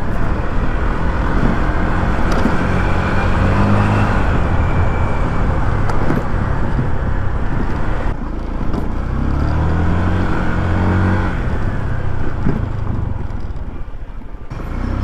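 Honda Click 150 scooter's single-cylinder engine running on the move, with heavy wind noise on the microphone and road traffic. The engine note rises and falls several times as the scooter speeds up and eases off.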